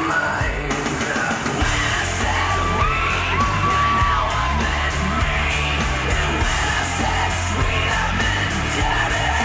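Pop-style performance music with a sung vocal holding long notes; a heavy bass line and beat come in about one and a half seconds in. Yells or whoops rise over the music, in a large hall.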